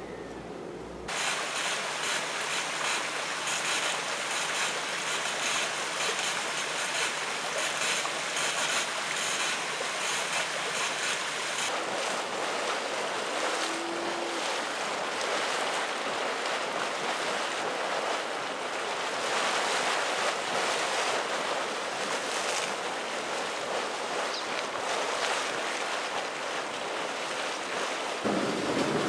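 Steam and boiling water venting from the fumaroles and hot springs of a volcanic thermal field: a steady rushing hiss. Its character shifts about a third of the way through, and a deeper rumble joins in near the end.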